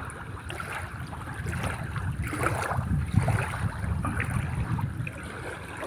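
Strong wind buffeting the microphone in a low, unsteady rumble, over the wash of wind-driven waves on open water.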